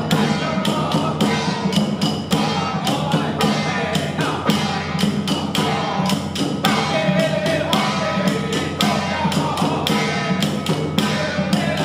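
Temple ceremony music: rapid, dense percussion strikes running steadily under a sustained melody line.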